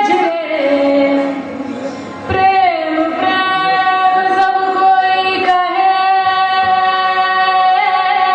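Female voice singing an Indian folk song with held notes that slide in pitch, accompanied by instruments. A few sharp drum strokes come in after about two seconds.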